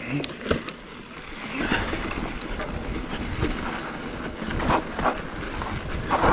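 Electric mountain bike rolling fast down a rough dirt singletrack: tyres crunching over dirt and the bike clattering and knocking over bumps, several louder knocks among them, with wind rushing over the microphone.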